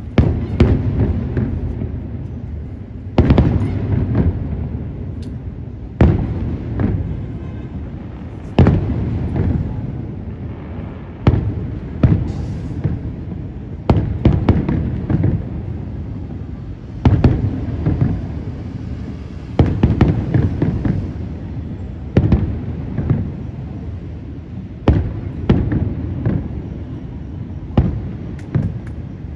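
Aerial fireworks bursting in a steady sequence: a loud bang every two to three seconds, each trailing off in a low rumbling echo, with lighter crackling between the bursts.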